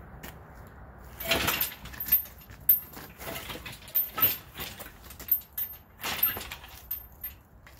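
Steel engine hoist, a rear axle hanging from its boom, being pushed by hand on its casters, giving a run of irregular rattles and clunks; the loudest comes about a second in.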